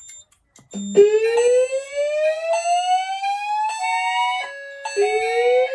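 Fire alarm system in drill: after a couple of clicks, an evacuation tone starts about a second in, sliding upward in pitch over about four seconds and starting over again about five seconds in, with chime notes sounding alongside it.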